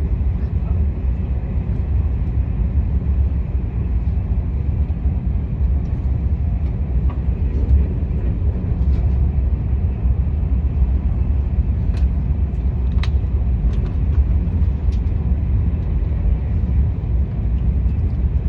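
Steady low rumble of a KTX high-speed train running, with a few faint ticks in the second half.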